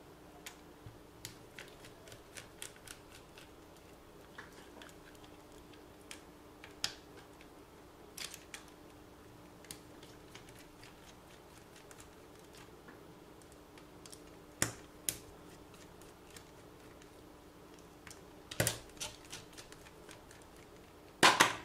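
Small scattered clicks and taps of plastic parts and a screwdriver being handled while a Xinlehong Q901 RC car is taken apart, over a faint steady hum. A few louder clacks come late on, the loudest near the end.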